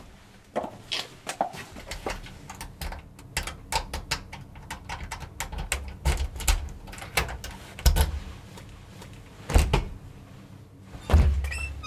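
A door or wooden panel being handled: a run of sharp clicks and knocks, with four heavy dull thumps, the loudest near the end.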